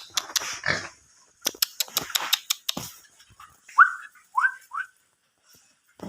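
Young pigs in a pen: a run of knocks and clatter, then three short rising squeals in quick succession about four seconds in.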